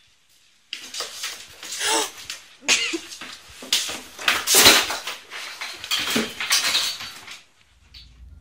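A cat on top of a tall cabinet yowling and scrabbling as it climbs down its side: loud, harsh bursts that start about a second in and stop shortly before the end.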